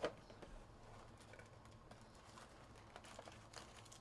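Faint rustling and light clicks of a cardboard trading-card hobby box being opened by hand and its foil packs lifted out.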